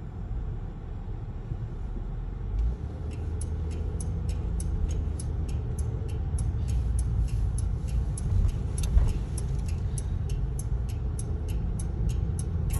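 Car turn-signal indicator ticking evenly, about three clicks a second, starting a few seconds in, over steady low road and engine rumble inside the cabin.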